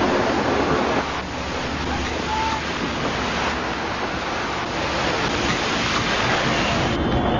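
Loud, steady rushing noise, like strong wind, as the dust and debris cloud of a collapsing World Trade Center tower sweeps over the camera.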